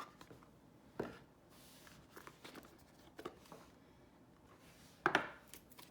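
Soft handling sounds of a cardboard tarot deck box and its cards: a few scattered light taps and rustles, with a sharper one near the end.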